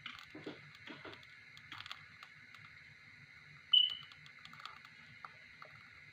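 Pancake batter sizzling faintly in a greased frying pan, with a few light knocks in the first two seconds. A short, high-pitched tone sounds a little past halfway.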